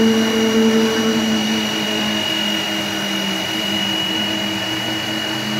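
Formula 1 car's Cosworth V10 engine idling, its low hum easing slightly down in pitch, with a steady high whine over it.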